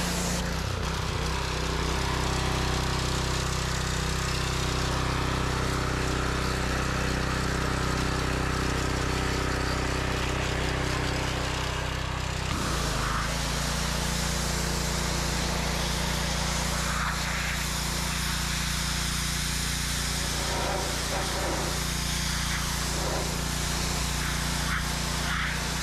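Gas pressure washer with a Kohler engine running steadily under the hiss of the high-pressure water spray. About halfway through, the engine note shifts and then holds steady again.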